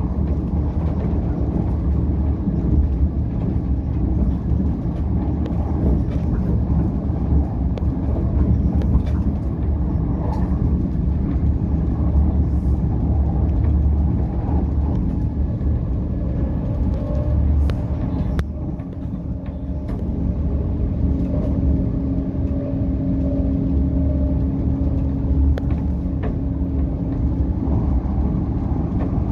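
Southeastern electric passenger train running at speed, heard from inside the carriage as a steady low rumble of wheels on track. About halfway through a steady hum joins it.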